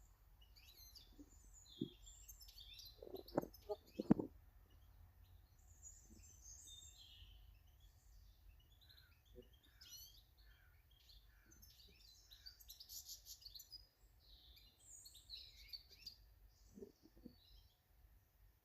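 Garden birds chirping and calling, many short high notes overlapping throughout. A few sharp knocks come in, the loudest about four seconds in, over a faint low rumble.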